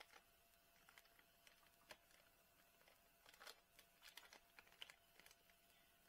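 Faint crinkling and small clicks of a plastic bag of shredded cheese being handled and pulled open, busiest about halfway through.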